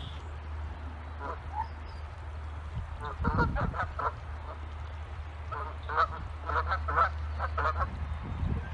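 Geese honking, a series of short calls in two main clusters, over a steady low hum.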